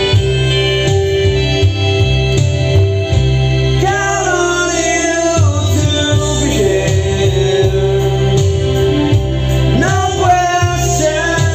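Karaoke backing track with keyboard and a steady bass line, with a man singing into a handheld microphone, a line about four seconds in and another near the end.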